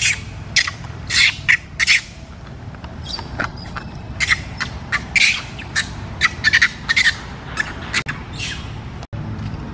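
A macaque screaming: short, shrill squeals in quick succession, with a lull a little after two seconds in. A low steady rumble runs underneath.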